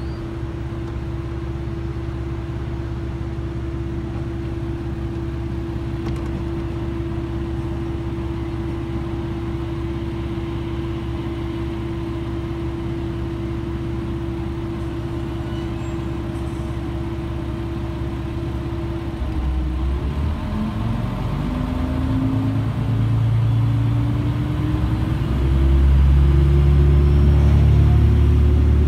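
A stationary train's steady hum with a constant tone, heard inside the carriage. About 19 seconds in, the train starts off and its traction sound rises in pitch in steps and grows louder as it accelerates away.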